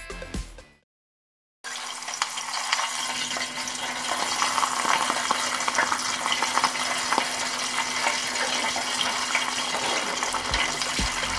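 A lobster tail deep-frying in oil at 190 °C in an electric deep fryer: steady sizzling and crackling. It starts suddenly about a second and a half in, after a moment of silence.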